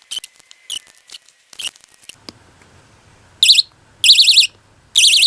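Piezo siren of a cheap battery-powered magnetic door alarm sounding in three short bursts of a high, fast-warbling shriek in the second half, after a few sharp clicks of the batteries and casing being handled.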